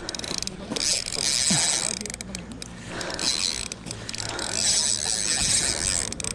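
Penn spinning reel cranked fast, its gears whirring and clicking as line is wound in, in two spells with a short break about two seconds in.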